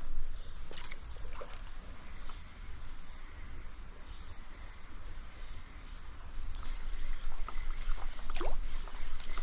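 Trout stream running, a steady rush of water, with a few brief splashes or clicks.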